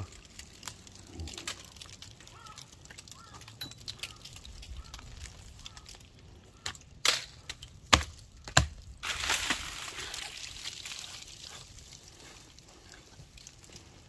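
Footsteps crunching and rustling through dry fallen leaves and crusted snow, then three sharp cracks a little past the middle, followed by a burst of rustling of dry branches and leaves that fades out.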